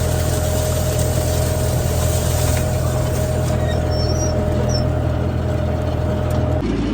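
Engine of the vehicle towing a Field Tuff seed drill, running steadily under load with a constant drone and a steady tone over it. The sound changes abruptly just before the end.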